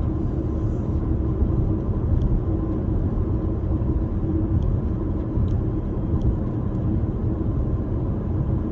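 Steady low rumble of road and engine noise inside a moving car's cabin while cruising.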